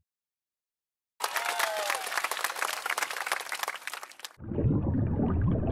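Applause sound effect: about three seconds of dense clapping that starts after a second of silence. A lower, duller sound takes over near the end.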